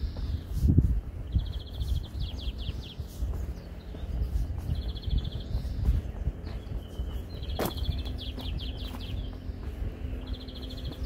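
A songbird singing the same short, high phrase, a quick run of notes, four times a few seconds apart, over the low thuds of footsteps on a path.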